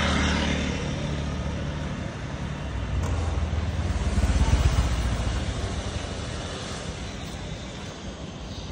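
Honda Julio 50cc scooter's small engine running at idle with a steady low hum. It swells louder for a moment about four seconds in, then settles back.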